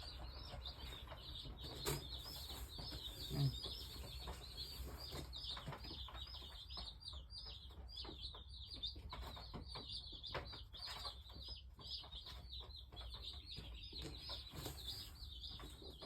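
A brood of Cornish Cross chicks peeping continuously, many short high peeps overlapping in a steady chorus. Two soft thumps come in the first few seconds.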